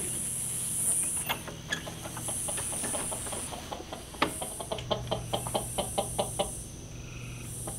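Chickens clucking softly on their roost as the hen house door is unlatched and opened, with a run of quick clucks about five seconds in. A high insect chorus pulses on and off throughout.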